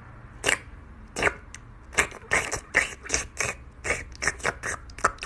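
A cat licking the surface of a clear bowl with its tongue, a string of short wet licks that comes faster after the first couple of seconds.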